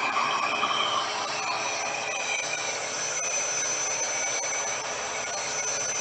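RevAir reverse-air hair dryer running, its motor pulling air and a lock of hair into the wand tube with a steady rushing noise, switched up from low to a warmer setting. A thin high whine comes in about a second and a half in.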